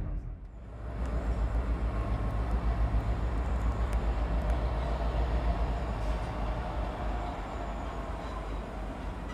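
A train running through the station: a steady low rumble with a fainter hiss above it. It swells up about a second in and eases off a little over the last few seconds.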